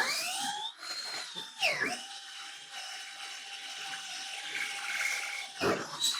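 Power drill boring a hole in wood: the motor whine rises at the start, dips about two seconds in as the bit bites, then holds steady before stopping near the end.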